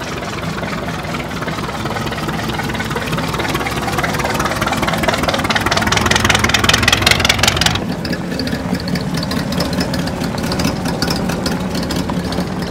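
Street rod's engine running, growing louder until about eight seconds in, then dropping sharply to a quieter, steady engine running.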